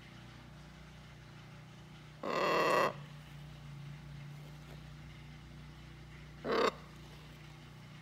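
Blue-and-gold macaw squawking: one long, harsh squawk about two seconds in, then a short call at about six and a half seconds.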